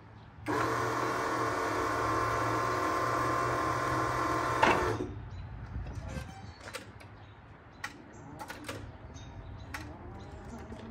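Big Joe battery-electric forklift's motor running with a steady whine for about four seconds, then cutting off with a click. Scattered clicks and knocks follow as the forklift is worked by its handle.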